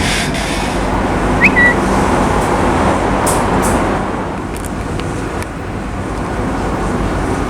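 Steady city street traffic noise with trams, a continuous rumble. About a second and a half in there is a short high chirp.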